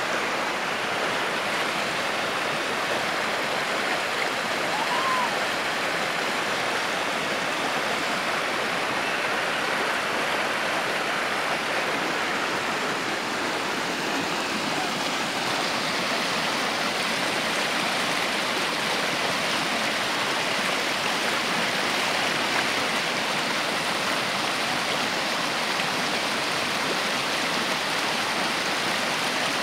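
Overflow water from a reservoir's spillway rushing steadily over rock ledges and churning through a rocky channel as white water.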